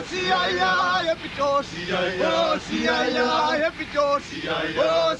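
A group of voices, mostly male, singing together in choir-like phrases.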